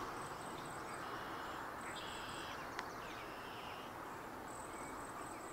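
Quiet outdoor ambience: insects trilling in high-pitched stretches that start and stop, over a steady low hiss of background noise, with one faint click about three seconds in.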